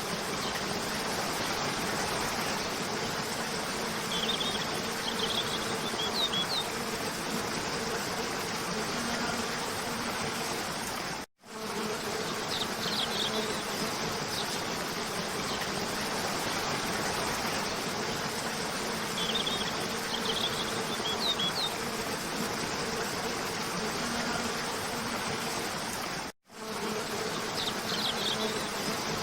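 Waterfall rushing steadily under a low steady hum, with short high bird chirps every few seconds. The sound cuts out for a split second twice, about 15 s apart, where the looped recording restarts.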